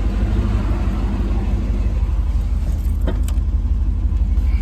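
Chevrolet Tahoe engine idling steadily, with a couple of sharp clicks about three seconds in.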